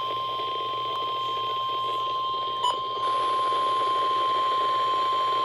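NOAA Weather Radio warning alarm tone: one long, steady single-pitch beep near 1 kHz, sounded by a weather radio to signal that a warning message is about to be broadcast.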